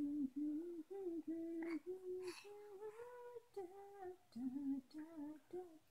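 A voice humming a simple tune, softly: a string of short held notes that step up and down in pitch.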